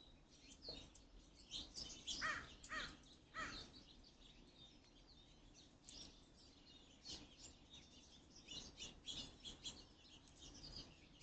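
A crow cawing three times in quick succession about two seconds in, over small birds chirping throughout.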